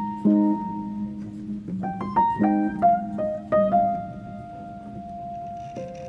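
Background piano music: single notes and chords struck about once a second, with one longer, softer held note in the second half.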